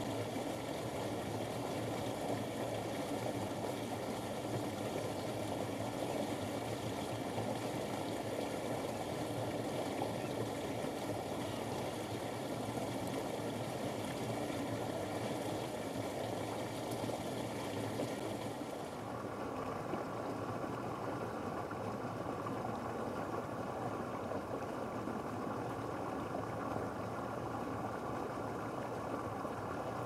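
Steady rushing background noise with no distinct bird calls; its higher hiss drops away about two-thirds of the way through.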